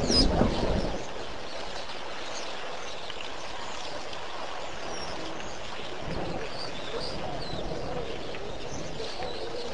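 Small birds chirping now and then over a steady hiss of outdoor ambience. A loud low rush of noise fills the first second and stops suddenly.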